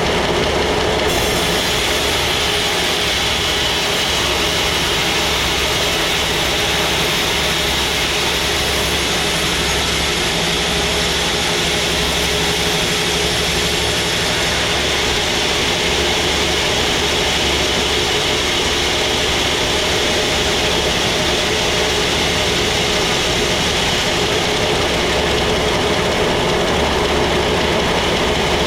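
Sawmill machinery running steadily with a constant, unbroken drone.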